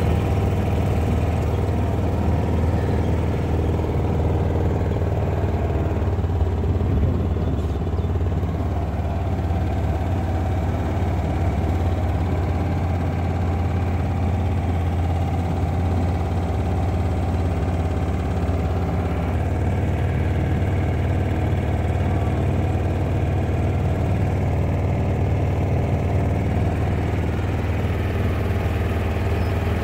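Kawasaki Mule side-by-side utility vehicle's engine running steadily, a constant low drone heard from the seat as it drives along a dirt road.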